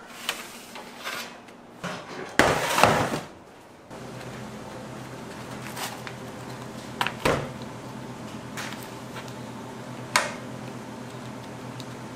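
Scattered knocks and clacks of tools and utensils being handled in a caramel-making kitchen, with a loud scraping rustle lasting about a second just before the middle. A steady machine hum runs on from about four seconds in.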